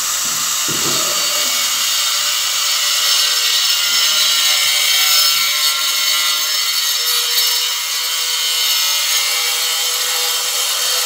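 A power tool running steadily nearby, making a continuous high-pitched whirring, grinding noise.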